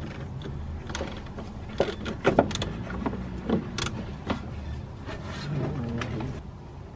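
Spanner work on the nut of a new drop link at the anti-roll bar, as it is tightened: scattered, irregular metallic clicks and knocks of the tool on the nut and link, over a low steady rumble.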